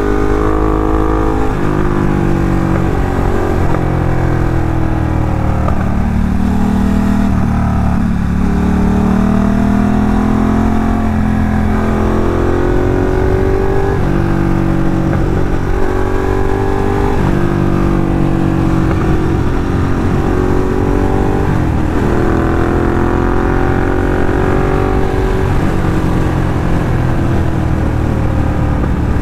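Ducati Diavel's L-twin engine heard from the rider's seat while riding, its pitch climbing and then dropping back sharply several times, with one long slow climb in the middle, as the rider works the throttle and gears. A steady low rumble runs underneath.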